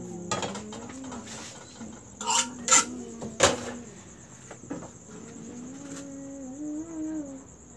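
Kitchenware clinking: a ladle and small frying pans knocking against a steel batter bowl and the gas stove as thin pancake batter is ladled out, several sharp clinks in the first half. A faint wavering voice comes in near the end.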